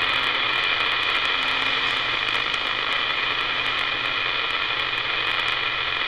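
CB radio receiver on channel 28 giving out a steady hiss of band static, with a few faint steady tones and scattered light crackles in it, and no voice through the noise.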